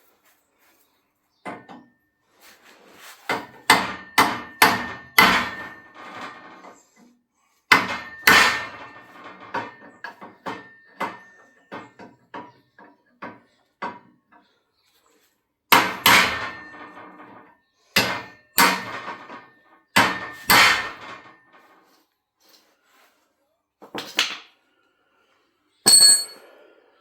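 Hammer blows on steel chassis rail, in irregular bursts of several strikes, each leaving a brief metallic ring. Near the end comes a single short, high metallic ding.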